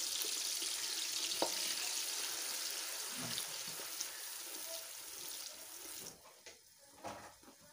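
Wet blended tomato masala paste sizzling in hot oil in a pan as it is poured in and stirred with a wooden spatula: a steady hiss that slowly fades, then drops away abruptly about six seconds in. A single sharp knock about one and a half seconds in.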